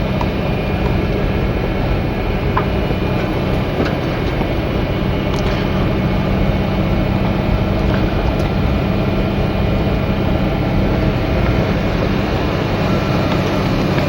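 1987 Ford Ranger pickup driving along a rough dirt field road, heard from inside the cab: a steady engine and road drone with a few light rattles and clicks.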